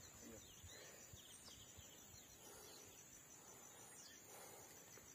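Near silence, with faint steady high-pitched trilling of insects.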